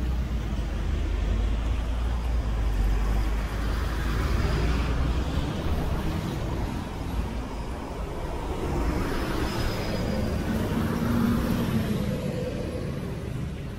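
Road traffic: motor vehicles driving past, the noise swelling and fading twice, with a low engine rumble through the first half.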